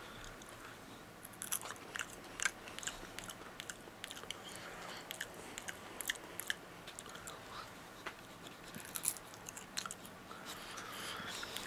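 A person chewing a mouthful of dried insect larvae, crunchy and very dry: faint, irregular crunches.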